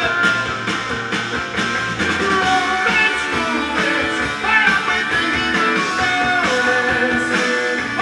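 Rock music with guitar playing from a vinyl record on a Dual 601 belt-drive turntable.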